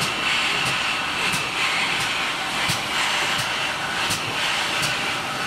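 GWR Large Prairie 2-6-2 tank engine No. 4160 drifting slowly past, with a steady hiss of steam and light clicks at an even beat, about every two-thirds of a second.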